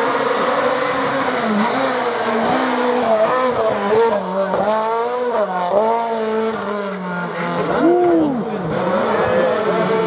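Renault Clio R3 rally car's 2.0-litre four-cylinder engine revving hard. The pitch climbs and drops again and again as it changes gear and lifts through the bends.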